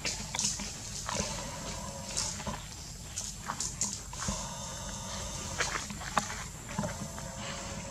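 Macaque monkeys' short calls and grunts among the branches, with scattered sharp clicks and rustles over a steady outdoor background.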